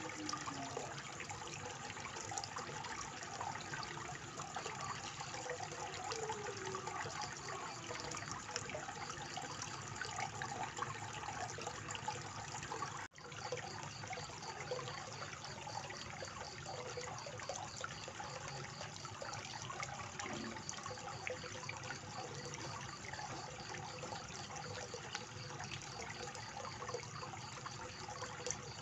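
Small waterfall spout pouring from stone steps into a koi pond: steady splashing and trickling of falling water. The sound drops out for an instant about halfway through.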